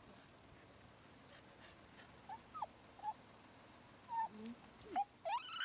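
Shiba inu giving a string of short, high whines that rise and fall in pitch, the excited whining of a dog eager to be greeted. The whines start about two seconds in and come faster and higher near the end.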